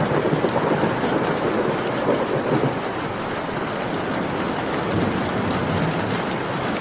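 Steady rain with a rumble of thunder, strongest over the first two to three seconds and swelling low again about five seconds in.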